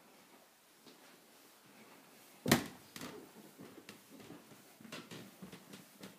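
Footsteps going up carpeted stairs: one sharp knock about two and a half seconds in, the loudest sound, then a run of softer, irregular thuds.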